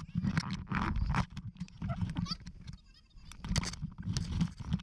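Fast-forwarded sound of a person shifting and sliding on a wet inflatable: irregular vinyl squeaks and rubbing, with a short lull about three seconds in.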